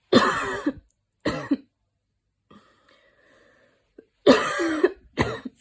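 A person coughing after a run: two bouts about four seconds apart, each a long, harsh cough followed by a shorter one.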